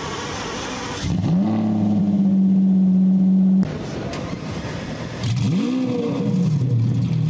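Car engine start-up: revs rise about a second in and hold steady for a couple of seconds before cutting off suddenly, then another start-up flare rises and falls back to a low idle near the end.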